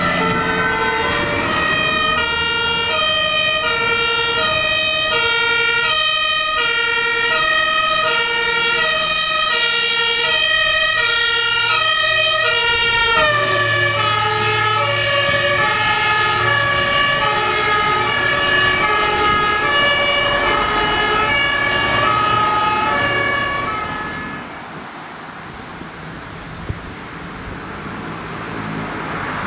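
Two-tone fire brigade sirens (German Martinshorn) on vehicles driving on an emergency run, switching between a high and a low note about once a second. About halfway through the pitch drops as a fire engine passes and drives away, its engine rumbling under the siren. The siren then fades, and another siren rises near the end as the next vehicle approaches.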